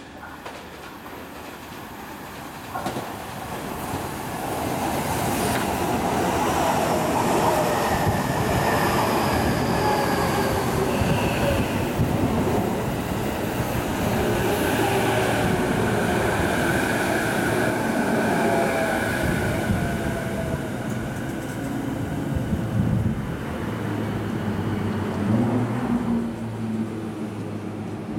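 JR East E233 series 5000 electric train running in along a station platform and braking to a stop, its wheels clacking over the rail joints and its motor whine falling in pitch as it slows. It builds up over the first few seconds and settles into a steadier low hum near the end as the train halts.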